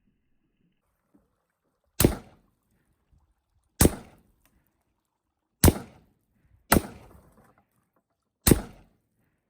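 Five rifle shots fired at irregular intervals, the fourth following the third after only about a second; each shot is a sharp crack that trails off briefly.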